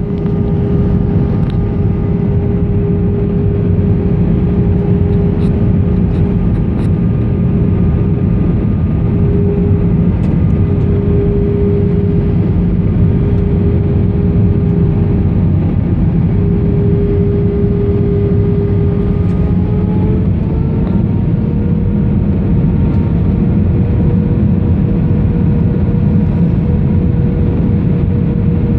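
Steady loud rumble of an airliner's cabin on landing approach, from engines and airflow, with a steady engine hum that climbs slightly in pitch about twenty seconds in.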